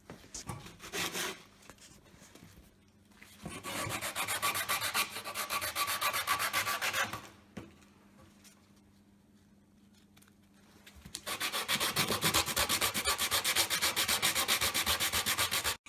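Sanding of a wooden board in two long spells of about four seconds each, a fast, even rasping rhythm, with quieter gaps between them.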